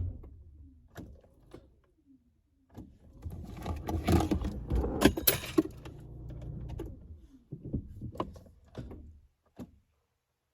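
Scattered knocks, clicks and rustling of something being handled, with a denser stretch of clatter over a low rumble in the middle, then the sound cuts off to silence near the end.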